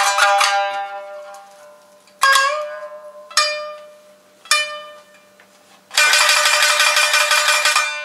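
A shamisen ensemble playing nagauta with plectrums. A quick run of notes dies away, then three single sharp struck notes each ring and fade, and about two seconds of rapid tremolo strokes come in near the end.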